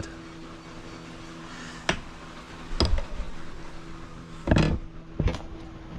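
A few sharp knocks and handling clicks, four in all, over a faint steady hum.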